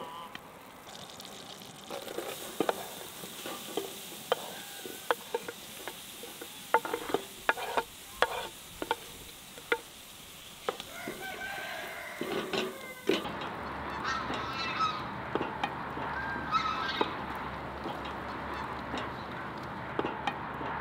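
Irregular sharp clicks and knocks of cooking utensils being handled and stirred. After an abrupt change about two thirds of the way in, poultry calls over a steady low hum.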